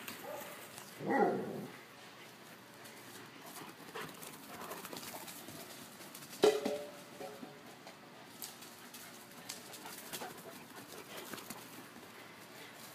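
A dog barks twice: a longer bark about a second in and a short, sharp one about halfway through, with quiet in between.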